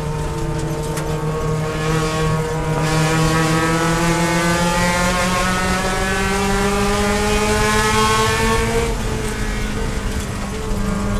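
Mazda Miata race car's four-cylinder engine heard from inside the cockpit, running hard at high revs with its pitch climbing slowly for about nine seconds, then the note shifts about nine seconds in.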